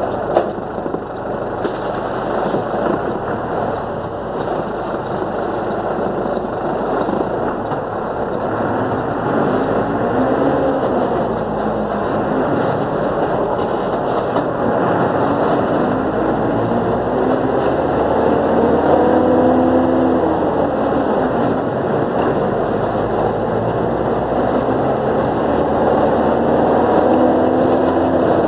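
City bus's diesel engine and running noise heard from inside the moving bus, with a knock near the start. From about a third of the way in, the engine note rises and falls several times as the bus pulls away and changes speed.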